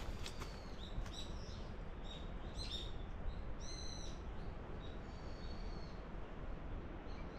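Birds calling: a series of short, high calls in the first four seconds and one longer call about five seconds in, over a steady low background rumble.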